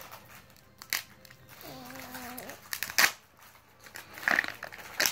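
Thin plastic crackling and clicking as an L.O.L. Surprise ball's wrapper and plastic shell are picked at and peeled open by hand, with a few sharp cracks among quieter rustling.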